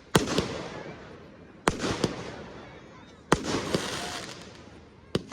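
Fireworks display: four sharp bangs of aerial shells bursting, about one every second and a half, each followed by a fading tail.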